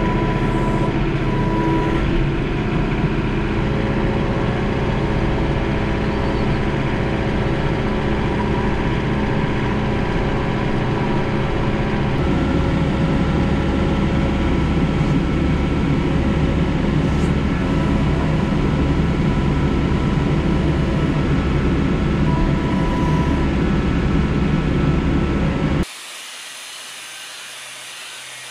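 John Deere compact tractor's diesel engine running steadily as it drives with a load on its front-loader forks; the engine note shifts a little about halfway through. Near the end it gives way abruptly to a much quieter steady hum.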